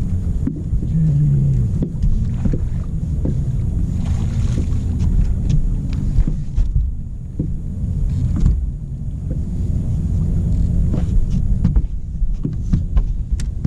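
Steady low rumble on a fishing boat on the water, with scattered knocks and clicks.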